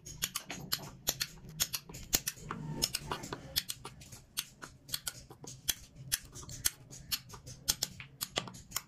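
Hand chisel cutting into a carved wooden panel: short, sharp clicks as the blade bites and snaps off small chips, about four a second and unevenly spaced.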